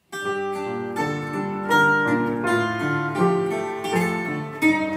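A mandolin-type plucked string instrument playing a lively melody of quick picked notes, beginning abruptly.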